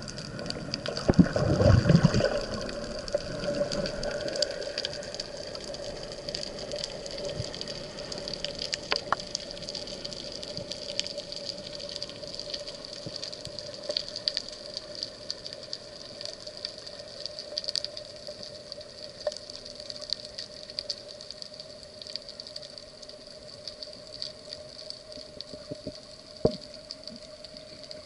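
Underwater sound picked up by a diver's camera: a loud burst of rushing water in the first couple of seconds, then a steady low hum and a high whine under a constant crackle of scattered clicks.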